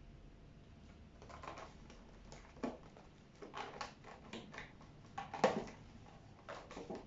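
Irregular light knocks, clicks and short scrapes from objects being handled during kitchen preparation, starting about a second in, with the loudest knock about five and a half seconds in.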